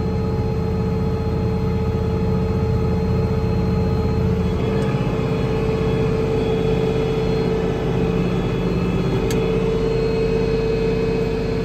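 International Harvester 1486 tractor's turbocharged six-cylinder diesel running steadily with the ear corn picker engaged, while the tractor is bogged in mud, with a steady whine over the engine note. The lowest part of the engine sound drops away about four and a half seconds in.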